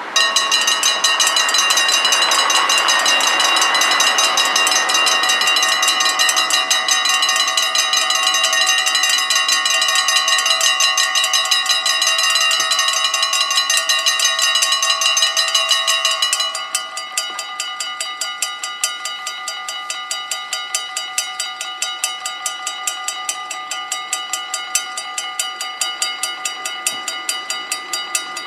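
Mechanical level-crossing bells start ringing abruptly, several bells struck in a rapid, even clatter. About 16 seconds in the ringing drops to a noticeably quieter level, the reduced bell volume a Dutch crossing switches to once its barriers are down.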